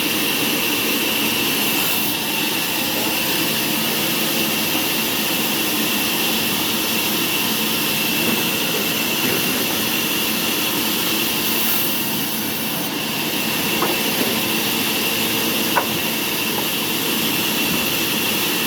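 Sawmill machinery running steadily: a constant high whine over an even rushing noise, with a sharp click about sixteen seconds in.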